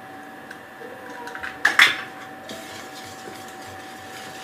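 Two quick clinks of a utensil or dish against a bowl about two seconds in, with lighter handling clicks around them over a faint steady hum.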